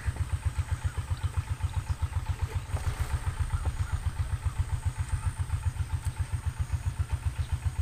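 Engine running steadily at low speed: a low, even chugging of about nine beats a second, with a few faint clicks about three seconds in.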